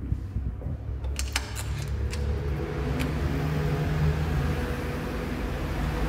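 Steady low rumble of street traffic, with a faint engine hum that swells around the middle. A few sharp clicks come about a second in and again near three seconds.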